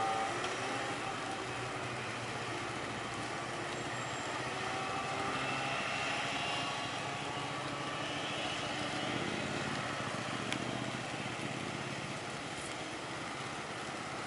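Road traffic: car engines running at a level crossing as the vehicles held at the barrier move off.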